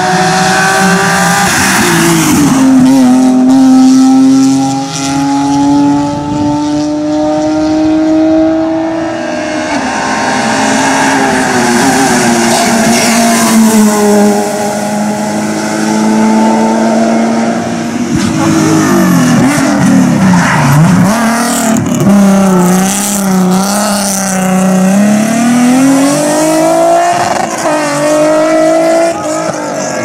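Rally cars at full racing speed on a tarmac stage, first a BMW Z3. The engines rev hard and drop in pitch at each gear change, with quick downshifts and throttle blips about twenty seconds in, and the revs climb again near the end.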